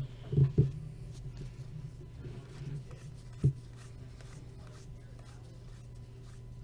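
Trading cards handled at a table: a few sharp taps and light rustling as cards are flipped, over a steady low electrical hum.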